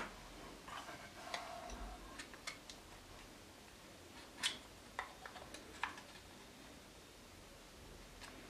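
Faint, scattered plastic clicks and taps from a GoPro in its clear plastic housing being handled and taken off its original mount. The clicks come mostly in the first six seconds, then it goes quiet.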